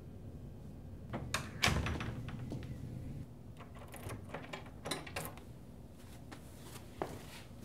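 Metal lever door handle being worked, the latch clicking and the door knocking in its frame in a string of sharp clicks, the loudest a little under two seconds in.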